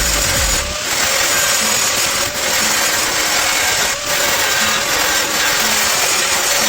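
A handheld power tool running steadily at high speed on sheet metal, with a steady whine and a dense rasping noise. It briefly lets up three times.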